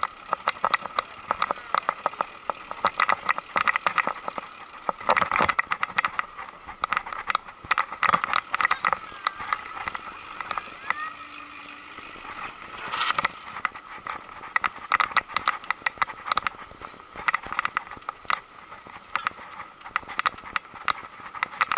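Scott Spark mountain bike clattering as it rides over a brick-paved path: a dense, uneven run of rapid clicks and rattles from the bike. There is a quieter stretch about halfway through.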